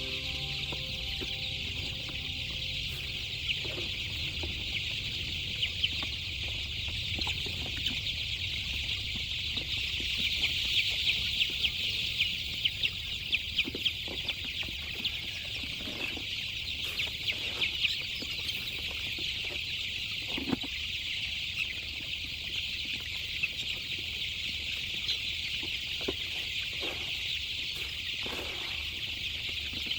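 Chickens clucking now and then over a steady high-pitched hiss, with scattered short clicks.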